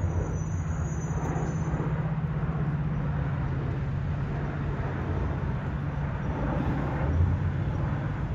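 Diesel-hauled Metra commuter train running: a steady low engine drone under continuous rolling noise, with a faint high whine in the first couple of seconds.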